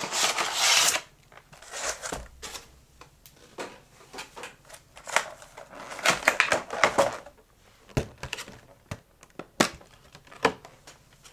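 A cardboard trading-card collection box being opened by hand. A loud burst of tearing and rustling comes in the first second, then scattered crinkles, taps and clicks as the cardboard and plastic inserts are handled.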